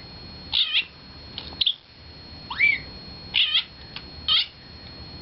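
A house cat making a series of short, high chirping meows, one of them a rising call, the kind of chirp a cat makes when watching a bird it can't reach.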